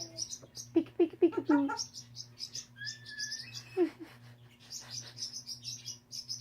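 African grey parrots chattering: rapid high chirps throughout. About a second in comes a quick burst of short, lower voice-like notes, and around three seconds in a whistle that slides down.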